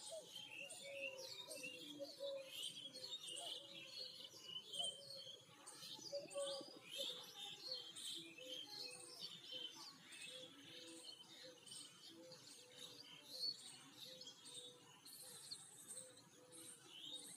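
Many small birds chirping and twittering, with a lower steady note running underneath.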